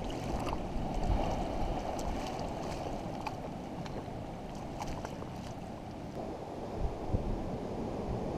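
Small ripples of shallow seawater lapping and trickling over rocks, with a light scatter of ticks, under wind noise on the microphone.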